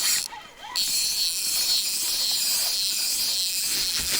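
Spinning reel whirring with a steady high hiss as a hooked fish is played, breaking off for a moment near the start before going on.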